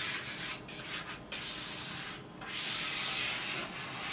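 Scraper rubbing over an adhesive vinyl poster on window glass, in several long strokes with short gaps, pressing the adhesive down and working out trapped air.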